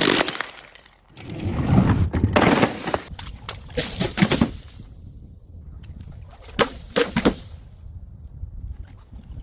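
Glass breaking: a crash at the start, then crunching and clusters of sharp clinks and tinkles from shards, twice more near the middle and later.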